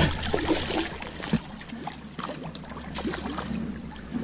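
Water splashing and sloshing in shallow creek water as a hooked fish thrashes at the bank while it is landed by hand without a net, a string of short irregular splashes.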